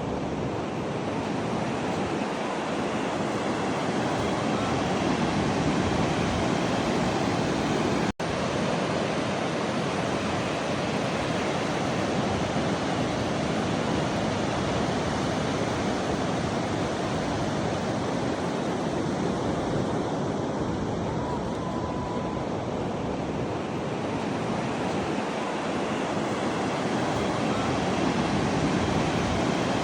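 Pacific Ocean surf: a steady wash of breaking waves, cut off for an instant about eight seconds in.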